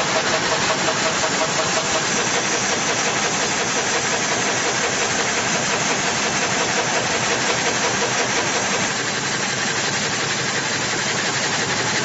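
Altai M450 multi-rip gang saw running, with an even, steady machine noise from its motors and circular blades. It gets a little quieter from about nine seconds in.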